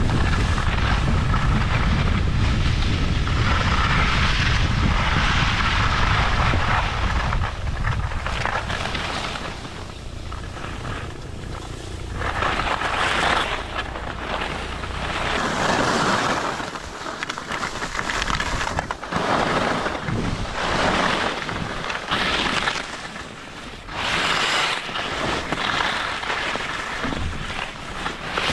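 Skis scraping over hard, icy piste in a run of turns, each turn a swell of scraping noise that rises and fades. Wind rumbles heavily on the microphone over roughly the first third.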